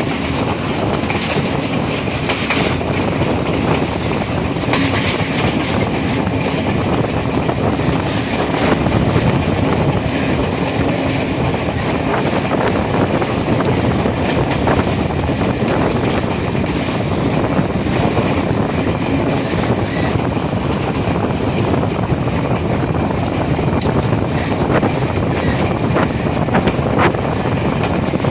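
A moving train running along the track: a steady rumble of wheels on rails, with a few sharp clicks near the end.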